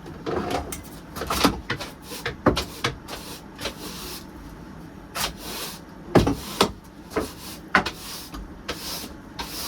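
Irregular knocks, clunks and short scrapes of hands-on building work: pieces being handled and set down.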